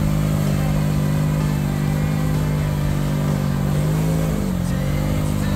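CFMOTO ATV engine held at steady revs as its tyres spin and churn through deep mud, the revs dipping briefly about four seconds in.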